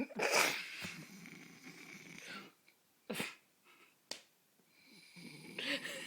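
A man snoring in his sleep: two long snores of about two and a half seconds each, one at the start and one near the end, with a few short sharp sounds between them.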